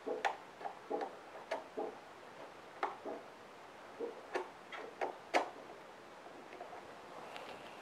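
Light, scattered clicks and taps of fingers pushing a microSD (TF) card into the card slot on the side of a Unic UR591SW portable radio, about a dozen irregular ticks that thin out over the last couple of seconds.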